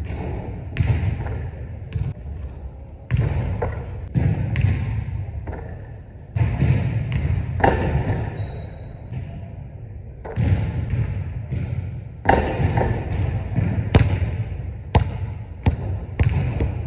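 Basketball shots and bounces: the ball repeatedly thuds on a hardwood gym floor and strikes the rim and backboard. Each impact rings out in the echo of a large hall.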